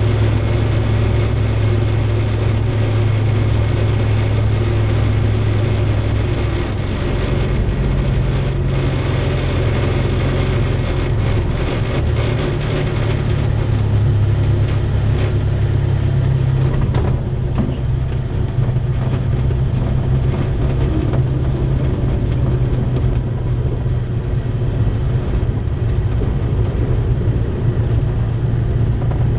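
Remos GX's Rotax 912 flat-four engine and propeller running at low, taxi power, a steady drone heard from inside the cockpit.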